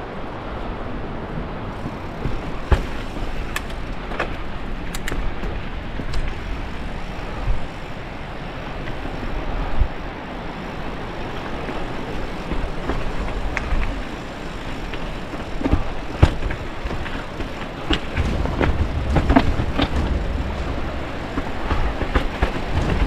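Mountain bike riding down a rocky trail: tyres rolling over rock and stones, the bike rattling, with frequent sharp knocks as the wheels strike rocks. A heavier low rumble comes in about eighteen seconds in.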